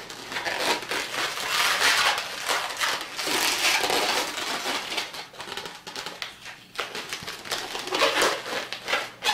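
Inflated orange latex twisting balloons rubbing against each other and the hands as they are twisted and pinched into segments, an irregular run of scratchy rubbing noises.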